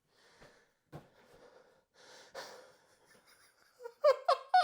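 A person breathing quietly, with soft rustling and a single click about a second in, then near the end a few short, loud voice sounds rising in pitch.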